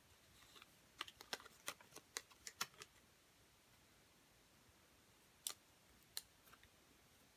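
Light clicks and clacks of the hard black parts of a small MiniRizer laptop riser being handled: a quick run of about ten clicks between one and three seconds in, then two sharp single clicks over the last couple of seconds, with near silence between.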